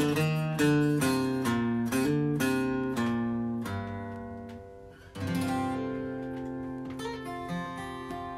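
Acoustic guitar strummed through the closing bars of a song. A held chord fades, then a final chord is struck about five seconds in and left to ring out, with a few lighter notes over it.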